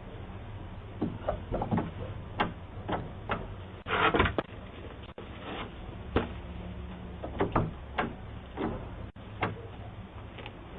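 Irregular sharp knocks and clicks, with a louder rustling burst about four seconds in, over a steady low hum, heard through a doorbell camera's narrow-band microphone.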